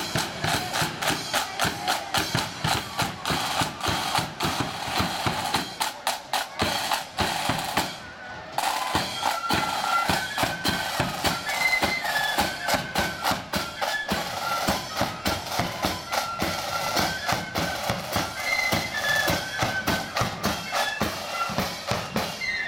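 Marching flute band playing a tune: side drums and a bass drum beat a steady march rhythm while flutes carry the melody. The sound cuts out briefly about eight seconds in, then the flute tune stands out more clearly over the drums.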